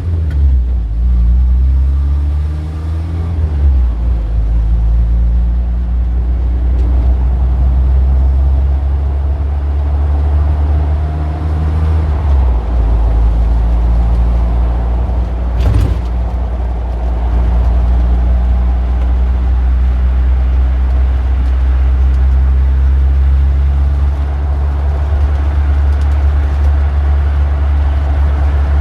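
Street traffic dominated by a nearby vehicle engine running with a steady deep rumble. Its pitch shifts a little about three seconds in and again about twelve seconds in. There is a single sharp click about sixteen seconds in.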